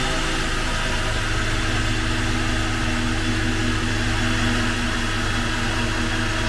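A Hyundai Starex tow truck's turbodiesel engine running steadily on a chassis dyno during a test, with a steady low hum under a loud hiss. The truck is being tested because it is down on power, with low boost pressure and heavy smoke.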